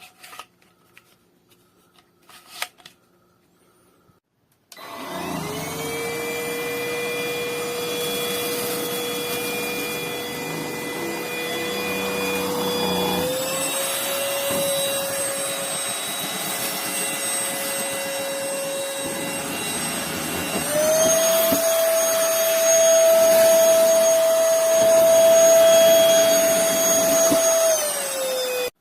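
A few clicks, then a MBYULO cordless stick vacuum's motor switches on about five seconds in and runs with a steady whine. The whine steps up in pitch twice as the vacuum moves up through its power settings, getting louder at the top setting, then winds down as it is switched off near the end.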